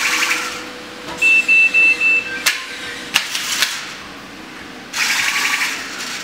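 Small electric motors of a remote-control jumping car toy whirring in short spurts as it drives and spins. About a second in come four quick high electronic beeps and then one lower beep, followed by a few sharp clicks.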